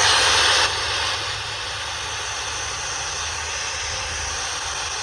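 Spirit box, an FM radio scanner, putting out loud radio static: an even hiss that is loudest for about the first second, then settles to a steady, slightly quieter level.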